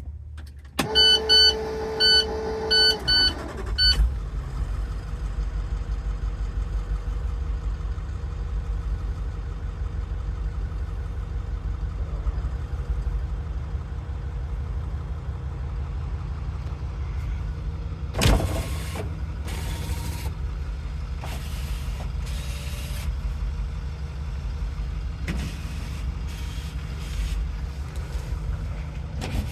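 International TerraStar diesel engine being started: a steady whine with a run of repeated dash warning beeps, then the engine catches about four seconds in and settles into a steady low idle. One sharp knock sounds about two-thirds of the way through.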